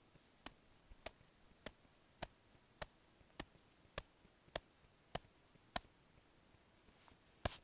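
Ten light, evenly spaced taps on a shovel blade laid on top of an isolated snow column, a bit under two a second: the wrist taps of an extended column test. After a short pause comes one harder tap near the end, the first elbow tap, on which the buried surface hoar layer fails.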